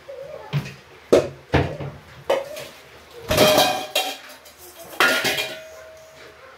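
Stainless-steel kitchen utensils clattering and clinking as they are handled: several sharp knocks in the first two seconds, a longer loud rattle of metal about three seconds in, then another clatter about five seconds in that leaves a pot or bowl ringing.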